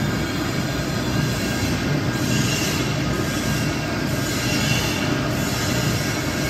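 MIC-30L vacuum homogenizing mixer running with its homogenizer and mixing drive on, a steady mechanical hum. A higher hiss swells and fades twice.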